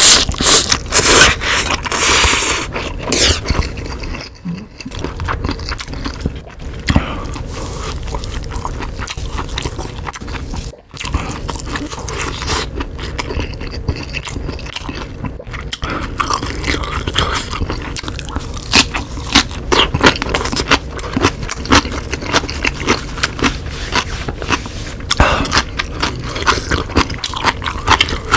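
Close-miked eating sounds: loud slurping of ramen noodles in the first few seconds, then steady chewing and crunching of napa cabbage kimchi with wet mouth clicks.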